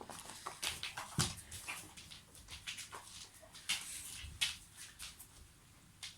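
Dog shifting and taking treats: soft, sporadic clicks and taps from claws and mouth.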